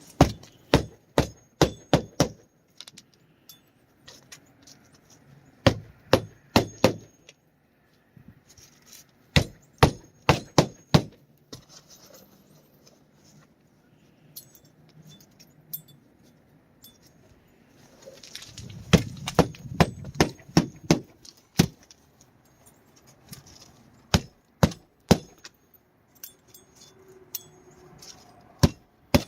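Hand hammer driving roofing nails into a new asphalt shingle: short runs of several sharp strikes, about three a second, with pauses between nails.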